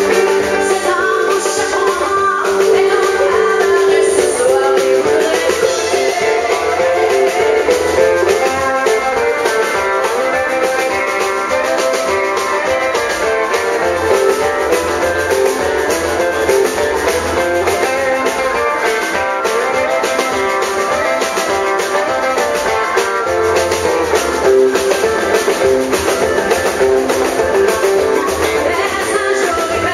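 Live country band playing an instrumental break led by electric guitar, over drums and keyboards; the female singer's voice comes back in near the end.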